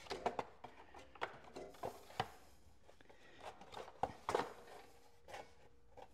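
Hard plastic air filter cover of a Briggs and Stratton Intek engine being pushed and worked into place by hand: a scatter of light clicks and knocks as its tabs and fingers seat in their slots, the loudest about two seconds in and again around four seconds in.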